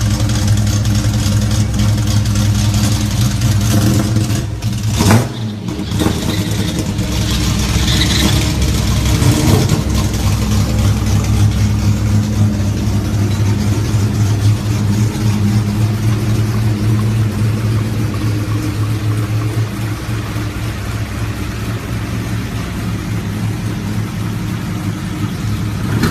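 Chevrolet Caravan's engine running steadily, with a short knock about five seconds in.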